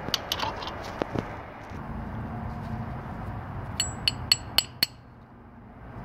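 A hammer tapping a new metal hinge pin into a Toyota Tundra door hinge, fitted with metal bushings from a hinge-repair kit. A few light metal clicks come first; near the end there is a quick run of about five ringing metal-on-metal taps.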